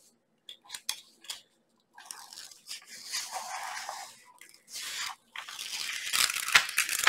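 The protective release sheet being peeled back off a diamond painting canvas's sticky surface and handled, crinkling and crackling in spurts, louder near the end.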